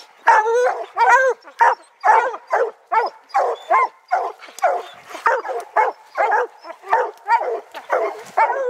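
A pack of hunting hounds barking treed at the foot of a tree, the bark of dogs holding game up a tree. Several voices overlap in an unbroken run of two or three barks a second.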